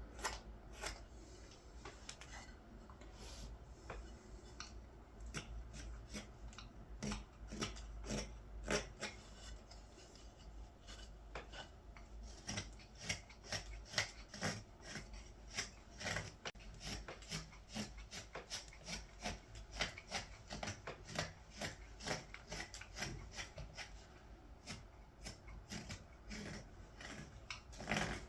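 Knife slicing shavings from a green-wood ladle blank: a run of short cutting strokes that come faster and more evenly in the second half.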